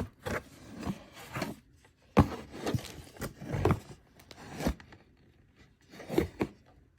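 Handling of packaging and small parts from a P80 pistol-frame kit: irregular rustling and scraping, with several sharp clicks, the loudest about two seconds in.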